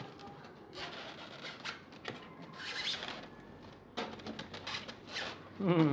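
Cardboard box flaps and a foam packing insert rustling and scraping as a computer case is handled and unpacked, with a few light knocks.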